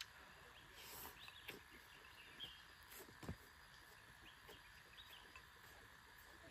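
Near silence with faint bird calls now and then, and a few short, soft slurps of rice noodles being eaten.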